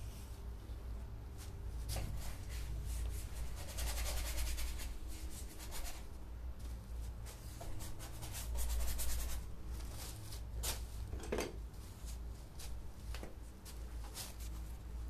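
Paintbrush rubbing on canvas and palette in short scratchy strokes, with a denser run of quick scrubbing strokes about four seconds in, over a steady low hum.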